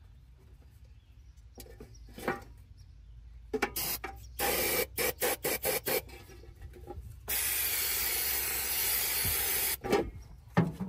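Aerosol spray can hissing into the carburetor throat: several short choppy bursts, then one long spray of about two and a half seconds. A couple of sharp knocks near the end.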